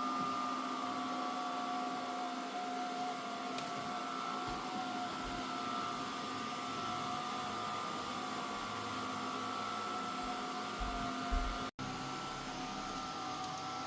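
Mova Z60 robot vacuum-mop running its cleaning run: a steady motor hum and suction whine with several constant high tones.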